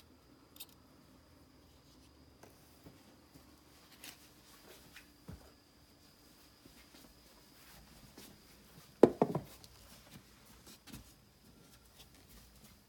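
Small handling noises, soft taps and rubbing, with a brief cluster of louder knocks about nine seconds in.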